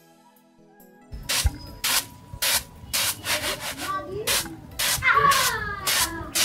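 Rapid loud breathy vocal bursts, about two a second, mixed with a few voiced cries in the middle. Faint music lies under the first second.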